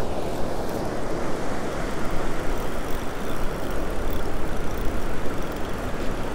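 Steady wind rushing over the microphone, mixed with the wash of breaking surf.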